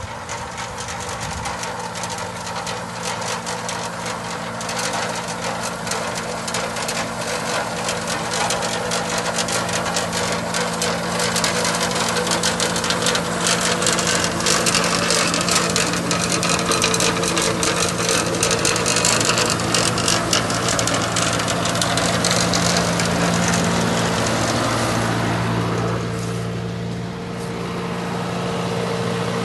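A tractor engine running steadily under load while the tractor-mounted Raptor 180 implement works through tomato vines, with constant clattering and rattling of plant material and debris in the machine. It grows louder as the machine passes close by and eases off briefly near the end.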